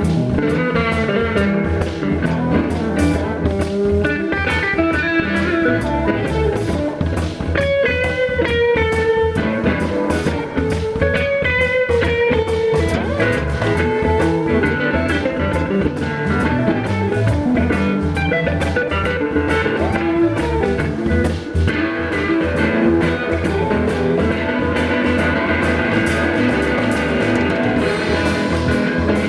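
Blues-rock instrumental music with no singing: guitar playing lead lines over a steady drum beat.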